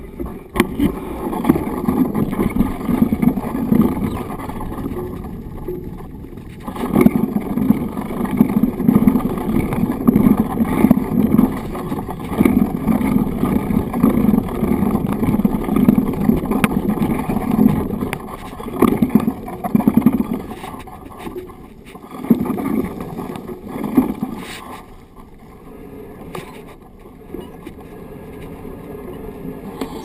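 Mountain bike rolling over a dirt trail: knobby-tyre rumble and rattling vibration carried through the bike-mounted GoPro's housing, rising and falling with the rough ground and easing off near the end.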